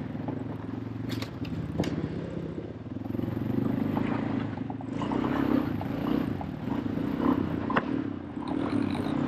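Small four-cylinder engine running steadily, its level picking up a few seconds in, with scattered clicks and rattles over it.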